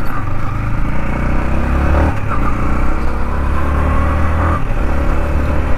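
Yamaha MT-15 V2's 155 cc single-cylinder engine pulling as the bike accelerates, with two brief dips, about two seconds in and again about four and a half seconds in, as it shifts up a gear.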